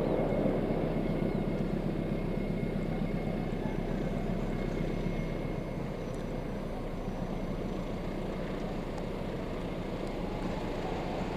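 Distant diesel locomotive and its passenger coaches running along the track: a steady low engine drone and rumble that slowly fades over the first half, then holds steady.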